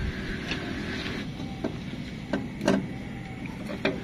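Plastic and metal parts of an LED projector headlight bulb being handled and fitted into the back of a car headlight housing: about five small sharp clicks and knocks over a steady background hiss.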